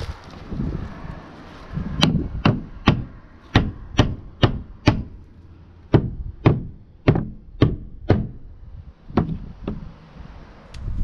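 Claw hammer driving nails through a wooden board into wooden cabin siding: about fourteen sharp blows in three runs of roughly two a second, starting about two seconds in, with short pauses between the runs.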